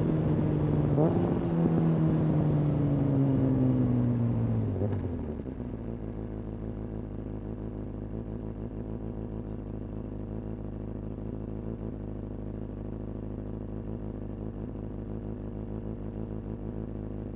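Kawasaki ZX-6R inline-four through a Hindle exhaust: a quick throttle blip about a second in, then the revs falling as the bike slows, settling about five seconds in to a steady idle with an even exhaust pulse.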